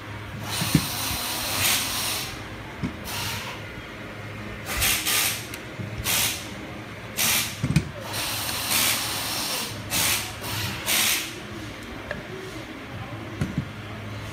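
Compressed gas or air hissing out in about ten short, separate bursts, as from an airsoft pistol's gas valve being worked, over a steady low hum, with a couple of sharp clicks.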